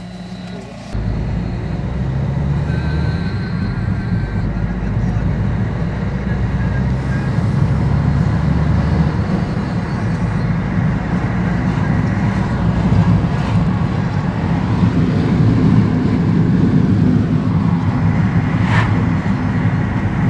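Car driving, heard from inside the cabin: a steady low rumble of engine and road noise that jumps up suddenly about a second in and grows louder from about eight seconds on.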